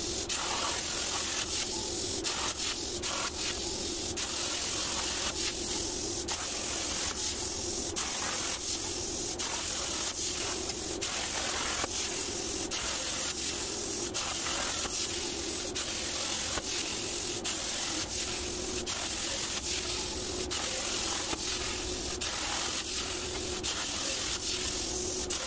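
CNC plasma cutter cutting steel plate: a steady loud hiss from the plasma arc and its air stream, with a steady low tone underneath.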